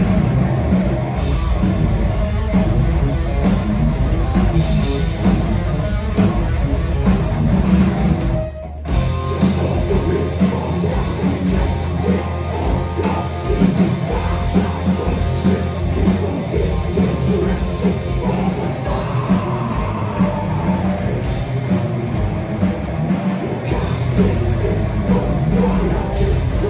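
Heavy rock band playing live: distorted electric guitar, bass guitar and drum kit, with a brief stop about eight and a half seconds in before the band comes back in.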